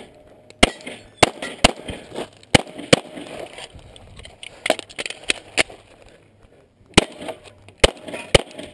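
Glock 9mm pistol being fired in rapid pairs and short strings, about a dozen shots with short pauses between strings.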